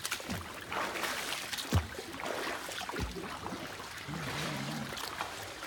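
Swimming-pool water lapping and sloshing right at the microphone, a steady wash of noise, with a couple of dull knocks about two and three seconds in.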